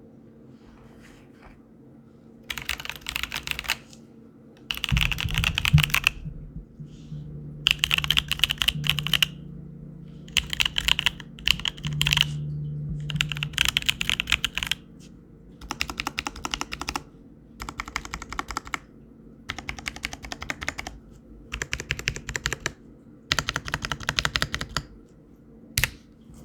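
Custom mechanical keyboard with lubed, gasket-filmed C3 Kiwi tactile switches on a POM plate in an acrylic case, typed on in quick runs of keystrokes. There are about ten runs of a second or so each, with short pauses between them.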